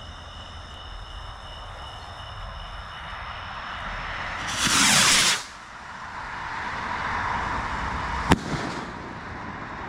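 Consumer firework rocket: a hiss builds, then about halfway in the rocket launches with a loud rush lasting under a second. A rushing sound continues as it climbs, and near the end a single sharp bang marks the burst.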